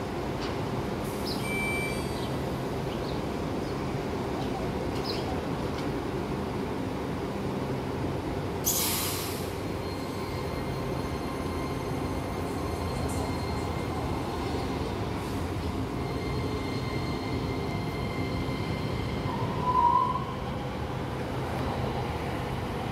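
DART light rail train pulling away along the platform, with a steady motor hum and wheel noise on the rails and faint high wheel squeal early on. A loud hiss lasts about a second roughly nine seconds in, and a short higher tone comes near the end.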